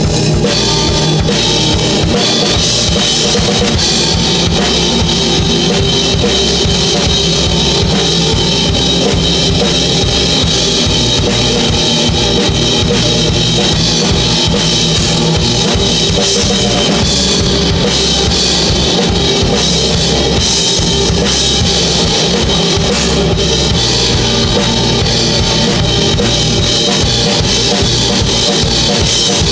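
A band playing a rock jam-session demo, with a drum kit driving it: bass drum and cymbals to the fore.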